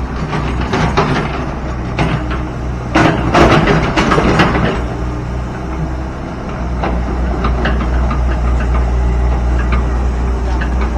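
A heavy diesel engine runs steadily at low revs. Loud clattering knocks come in a burst from about two to four and a half seconds in.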